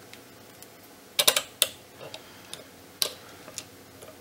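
Sharp plastic clicks and taps from a clamshell eMMC test socket on a chip programmer as a replacement eMMC flash chip is handled and seated in it: a quick cluster of three or four clicks just over a second in, another about three seconds in, and a few light ticks between.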